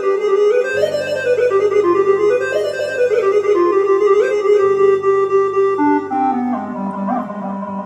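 Electronic keyboard playing an ornamented lead melody with pitch bends over sustained bass notes, heard through a PA speaker; near the end the melody slides down to a low held note.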